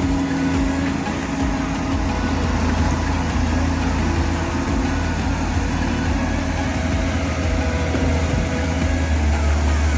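Komatsu excavator's diesel engine running steadily with a deep hum, a few higher tones shifting slightly in pitch over it.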